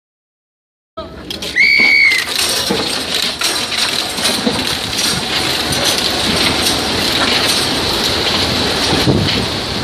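A mass release of racing pigeons: starting about a second in, a brief high tone, then the dense clatter of thousands of wings flapping at once as the flock takes off.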